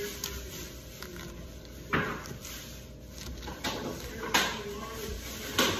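Eating sounds from a lettuce salad: a fork stabbing into crisp leaves and crunchy chewing, with four sharp crunches, the first about two seconds in and the last near the end.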